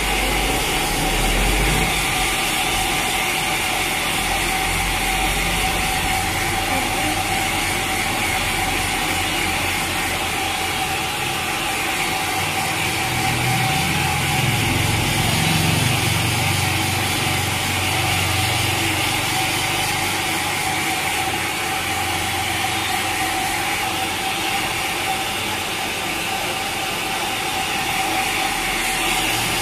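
Handheld hair dryer running steadily, a rushing of air with a faint steady whine, blowing onto a wet kitten's fur to dry it after a bath.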